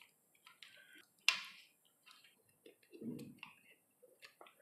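Hands handling small plastic parts of an RC truck's receiver box and ESC wire: scattered faint clicks, one sharp click about a second in, and a soft rustle near the middle.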